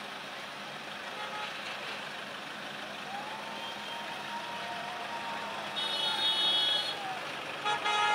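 Busy road traffic running steadily. A long, steady tone comes in about three seconds in and falls away, and a car horn honks twice near the end.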